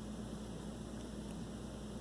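Steady hiss with a constant low electrical hum; no distinct sound events stand out.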